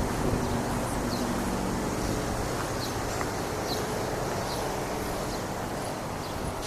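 A steady mechanical hum with faint, short high chirps about once a second.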